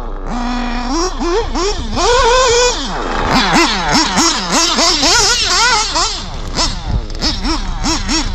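Nitro RC buggy's FX two-stroke glow engine revving, its pitch held briefly near the start and then rising and falling again and again in quick succession as the throttle is worked at high revs.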